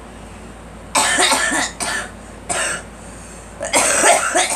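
A girl coughing in fits: a quick run of coughs about a second in, two single coughs after it, then another hard run near the end. The cough is put down to pollen.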